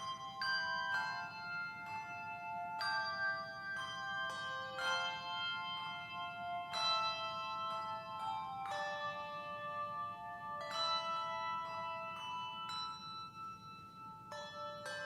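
Handbell ensemble playing a slow hymn arrangement: chords of struck bells that ring on and overlap, with a new chord about every one to two seconds.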